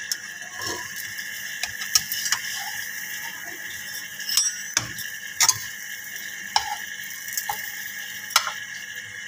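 Steel slotted spatula scraping and clicking against a non-stick frying pan in scattered knocks as it is worked under a sandwich to flip it.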